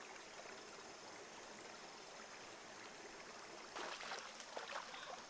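Shallow rocky stream flowing steadily. About three-quarters of the way through, a louder burst of splashing as water is tipped from a hand-held bowl into the stream.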